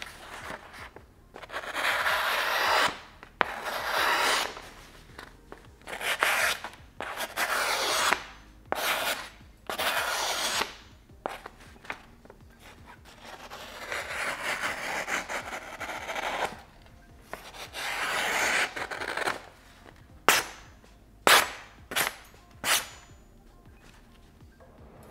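Shun Premier chef's knife slicing through a hand-held sheet of paper in a paper-cutting test of its edge: a series of rasping slicing strokes of a second or two each, then four quick short cuts near the end.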